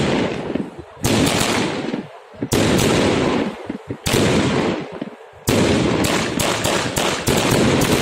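Aerial fireworks bursting overhead: loud bangs about every second and a half, each trailing off, then a quicker volley of bangs from about five and a half seconds in.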